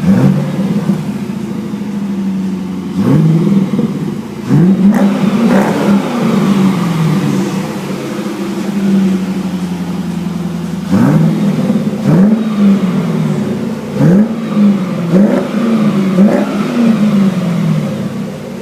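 C5 Corvette V8 through a Borla aftermarket exhaust, idling and revved in quick throttle blips: a single blip right at the start, a few a few seconds in, then a run of about five blips in the second half, each rising sharply and falling back to idle.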